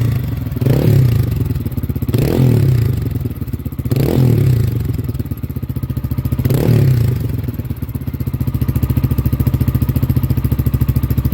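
KPM200 motorcycle engine, fitted with an aftermarket slip-on muffler that has a baffle, revved on a cold start in several short blips of the throttle, each rising and falling back. It settles to a steady idle for the last few seconds.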